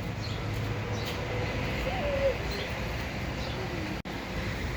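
Steady low rumble of outdoor background noise, with a short murmur of a voice about two seconds in and a fainter one shortly before a momentary dropout near the end.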